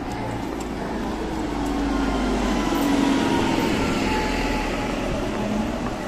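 A vehicle going past, its running sound swelling to a peak about three seconds in and then easing off.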